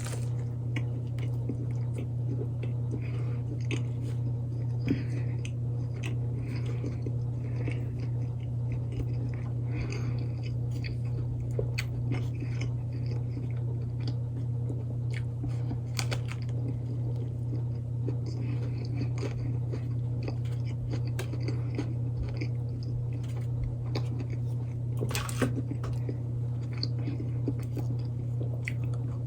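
Chewing and biting into a chicken BLT sandwich close to the microphone, over a steady low hum, with a sharper click near the end.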